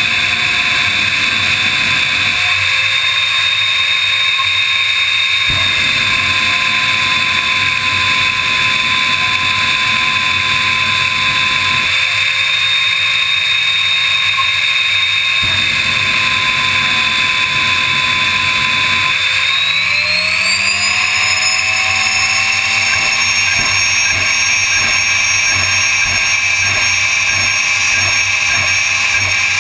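Drag car engine running loud and steady, heard from a camera mounted on the car. A little past the middle its pitch rises and then holds at the higher level as the car rolls forward.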